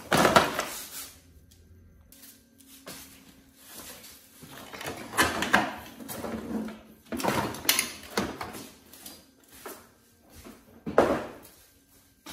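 Clattering and rustling of parts stripped from a Honda PAL moped, the wiring harness and rusty metal pieces, being handled and dropped into a plastic parts tray, in four separate bursts.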